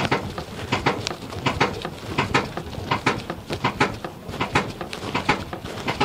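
Repeated sharp clunks and knocks, about three a second, from the rear suspension of a 2002 GMC Envoy as its body is rocked: the sign of a broken rear stabilizer (sway bar) link on the driver's side.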